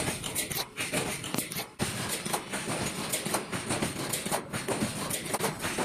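Wire mesh welding machine running: a dense, irregular clatter of clicks and knocks over a steady high hiss.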